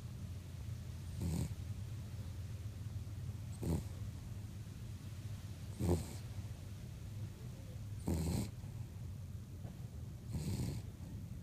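A cavapoo (cavalier King Charles spaniel–poodle cross) snoring in its sleep: five short snoring breaths, about one every two and a quarter seconds.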